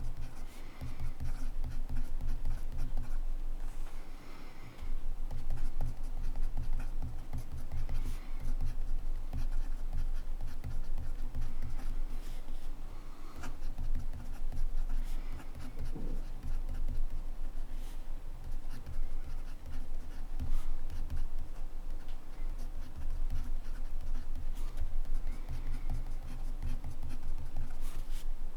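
Montblanc Meisterstück 144 fountain pen nib scratching across paper in quick, continuous handwriting strokes, with a few brief pauses between words.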